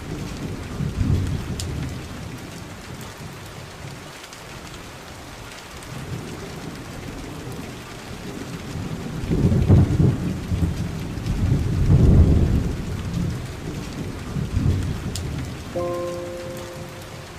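Rain falling steadily with rolling thunder; the rumbles swell loudest about ten and twelve seconds in.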